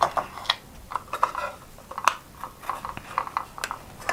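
Plastic toy knife cutting apart a velcro-joined toy passion fruit on a plastic chopping board: scattered short clicks, taps and scratchy sounds at an uneven pace.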